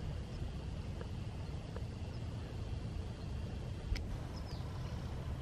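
Open-air hillside ambience: a steady low rumble with a few short, faint, high bird chirps and a single faint click about four seconds in.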